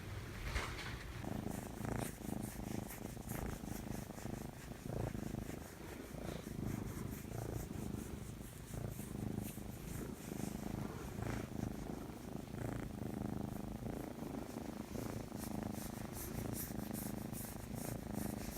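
A domestic cat purring steadily close to the microphone, with light crackling clicks near the end.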